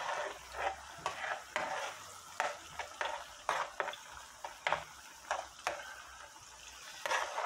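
A metal spoon scraping and stirring a tomato-and-onion sauce in a frying pan, about two strokes a second, pausing briefly near the end, over the sauce's steady sizzle as it fries.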